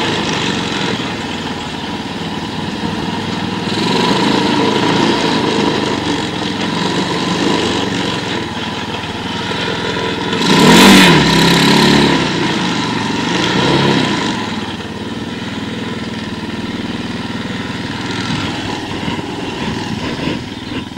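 Small kick-start quad bike engine running and being revved, its pitch rising and falling several times, with the loudest rev about halfway through before it drops back.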